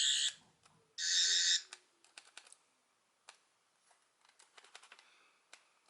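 Eleventh Doctor sonic screwdriver toy playing its high, warbling electronic buzz from its small speaker, set off in closed mode: a short burst at the start and another from about a second in, lasting under a second. Small plastic clicks of its button and handling follow.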